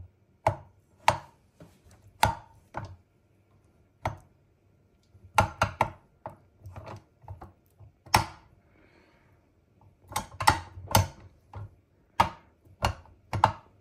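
Sharp metal clacks and knocks from a KitchenAid flex edge beater being jiggled and pushed on the stand mixer's beater shaft and pin. The beater is stuck and will not come off. About twenty knocks come at irregular intervals, some in quick runs of three or four.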